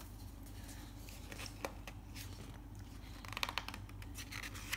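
Glossy picture-book page being turned by hand: a crinkling rustle of stiff paper about three and a half seconds in, with a few faint clicks before it, over a low steady hum.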